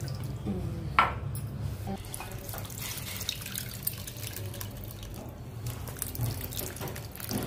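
Water splashing and trickling in a kitchen, with a single sharp clink about a second in.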